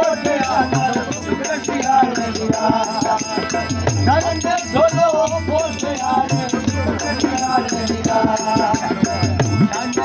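Live folk music played on the spot: a harmonium and a singing voice with a wavering melody over a recurring low beat and quick percussive clicks.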